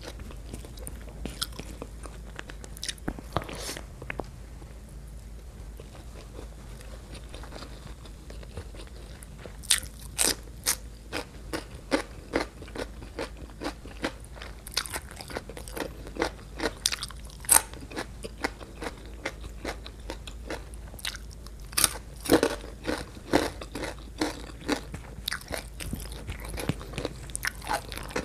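Close-miked eating: a person chewing mouthfuls of spicy stir-fried shrimp and rice eaten by hand, with crisp crunching bites and wet mouth clicks. The sounds are sparse at first and come thick and fast from about ten seconds in.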